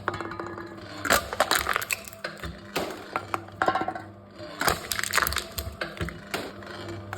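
Aluminium cans being crushed by a machine: irregular crackling and crumpling of thin metal, with many sharp cracks throughout, over a steady low hum.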